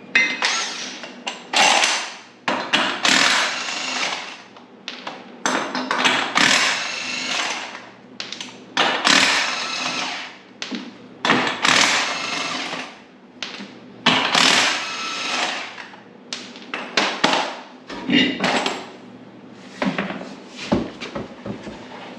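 Cordless impact wrench run in repeated bursts of a second or two, spinning lug nuts on a race car's rear wheel during a tire swap.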